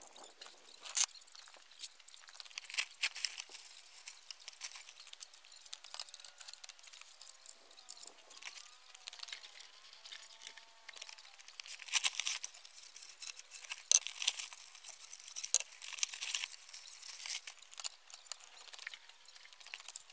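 Irregular run of clicks, clinks and taps from metal camera-crane parts being handled and fitted together, with a few sharper knocks about a second in and around the twelve- and fourteen-second marks.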